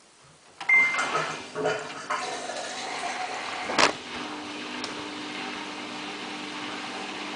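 Samsung WF8804RPA washing machine being started in its service test mode: a short beep and a few knocks, a loud click a little under four seconds in, then a steady low hum as the machine starts running.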